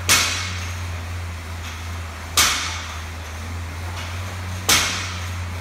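A loaded barbell with 15 kg bumper plates dropped onto the gym floor three times, about two and a half seconds apart, each a sharp bang that rings out briefly, over a steady low hum.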